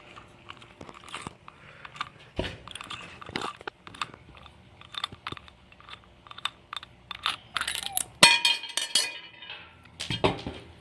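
Irregular metal clicks and clinks of an Allen key and small scooter parts being handled while the fork's compression bolt is worked loose, with a louder cluster of clatter about eight seconds in.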